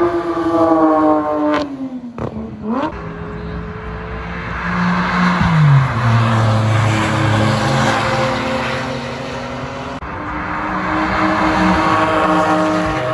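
Porsche sports car engines driving past on a race track at speed, several in turn. The pitch falls in the first two seconds, drops suddenly about five and a half seconds in as a gear changes, and a second car's engine rises in the last few seconds.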